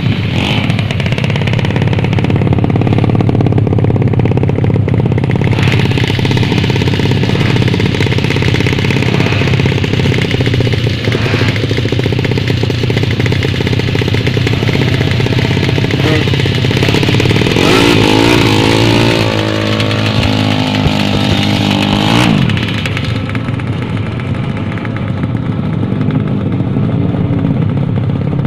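Drag-racing motorcycle engines running loud and steady. About 18 seconds in the engine note sweeps up and down in pitch as the throttle is revved, then drops away sharply a few seconds later.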